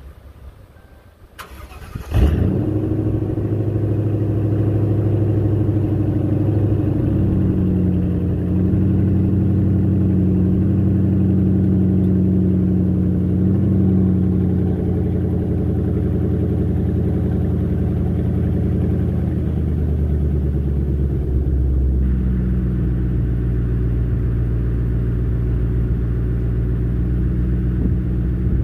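Lincoln Town Car's 4.6-litre V8 starting about two seconds in, then idling steadily through a cat-back exhaust with Roush mufflers, a Flowmaster H-pipe and 2.5-inch pipes. The idle settles a little lower about twenty seconds in.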